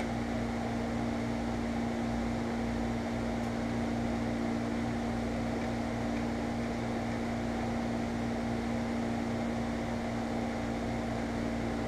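Kitchen range hood fan running with a steady, even hum.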